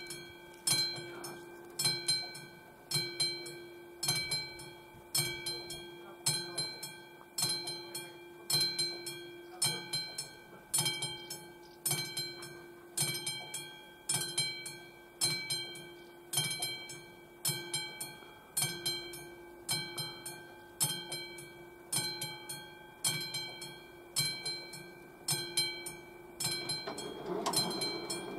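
AŽD 71 level-crossing warning bell ringing about once a second, the crossing activated for an approaching train. A rushing noise joins near the end as the barrier arms begin to lower.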